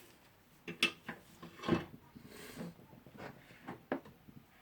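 Scattered metal clicks and knocks as the impact driver's hammer mechanism is worked in a bench vise, a few sharper taps about a second in and near two seconds, with lighter ticks between.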